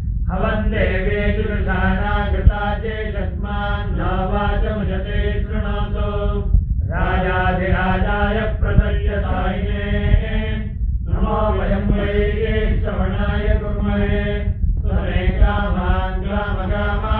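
Ritual mantra chanting in long, continuous phrases broken by short pauses for breath, over a steady low hum.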